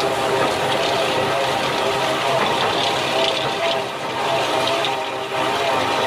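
Tractor engine running steadily under load, with the rushing, scraping noise of a rotating-disc verge cutter slicing soil and turf from the road edge and carrying it up a conveyor.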